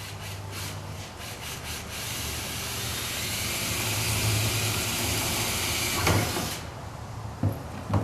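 Electric drill boring a pilot hole through the sheet-metal bed-rail piece and pickup bed front wall: a few short trigger bursts, then about four seconds of steady drilling that stops suddenly with a knock. Two more knocks follow near the end.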